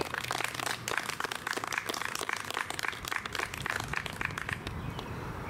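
A small group of people clapping at the end of a talk, with separate claps easy to pick out, dying away near the end.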